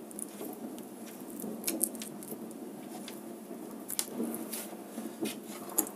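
Small handling noises of insulated wires and a plastic three-pin plug top being manipulated by hand: scattered light clicks and rustles over a steady background noise.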